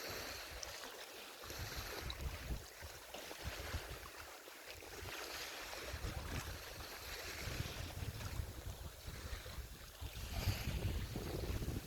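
Wind gusting across a phone's microphone, buffeting in uneven bursts that grow stronger near the end, over a steady rushing hiss.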